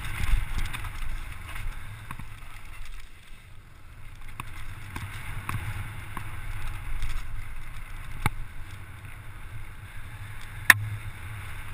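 Mountain bike descending a dirt singletrack at speed: wind buffeting the microphone and a steady low rumble of tyres on dirt, broken by scattered rattles and knocks from the bike over bumps, with one sharp loud knock near the end.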